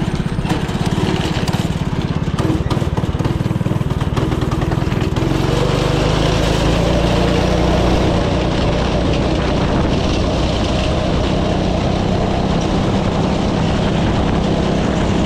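Go-kart's Predator 212 single-cylinder four-stroke engine, fitted with a stage one kit, running loud at full throttle on a top-speed run. It holds a steady drone near the kart's top speed of about 27 mph.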